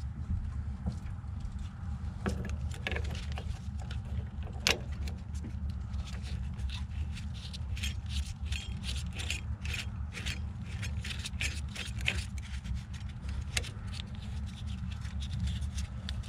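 Metal hand tools being handled: irregular light clinks, rattles and scrapes, thickest in the middle of the stretch, with one sharper clack a few seconds in, over a steady low hum.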